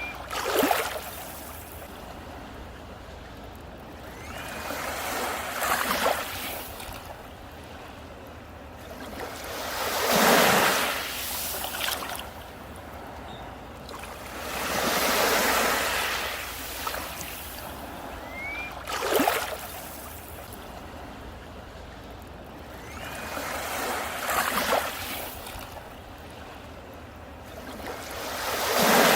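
Sea waves breaking on a beach, the surf swelling and crashing about every four to five seconds.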